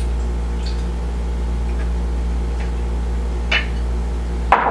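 A few light clicks about once a second, with a sharper click near the end: a wooden spoon knocking against a ceramic bowl and an aluminium pot as oil is poured out. A steady low hum runs underneath.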